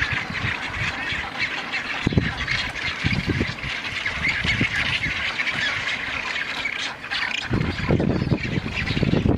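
Nesting seabird colony: many birds squawking and calling at once in a dense, continuous chorus. A low rumbling joins in about three quarters of the way through.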